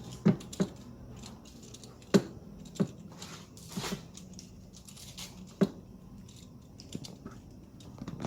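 Sharp clicks and knocks of hands and tools on plastic and metal parts in an engine bay, about five spread over the stretch, the loudest about two seconds in, with a rustle around the middle, over a low steady hum.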